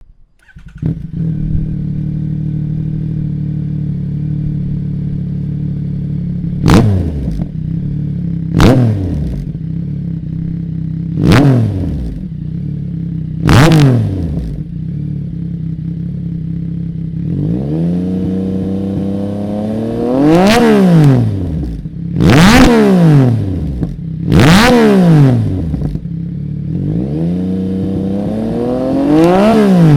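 Yamaha XSR900's inline three-cylinder engine breathing through a Zard racing full exhaust system: it idles steadily, takes four short sharp throttle blips between about 7 and 14 seconds in, then from about 18 seconds a series of longer revs that climb and drop back to idle.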